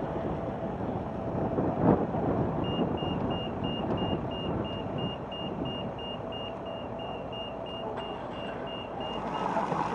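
Pedestrian crossing signal beeping, a row of short high pips at one pitch, about four a second, that starts about three seconds in and stops near the end, sounding while the crossing is open to pedestrians. Under it, steady traffic and street noise, with a knock about two seconds in.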